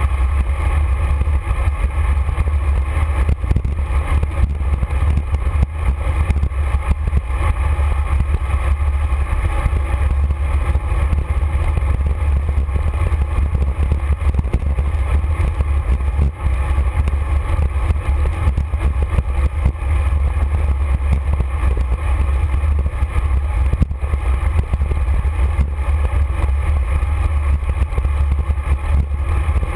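Steady, loud rumble of wind buffeting a bicycle-mounted camera's microphone while riding at speed, mixed with road noise from the bike.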